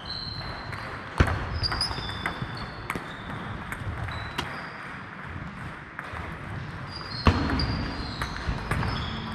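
Table tennis ball clicking off bats and the table in short, irregular taps, with a louder thump about a second in and another about seven seconds in.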